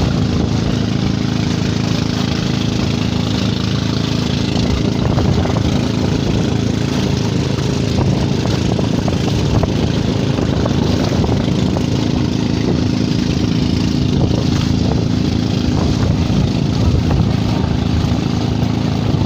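Engine of a motorized outrigger boat (bangka) running steadily under way, with water rushing and splashing along the hull.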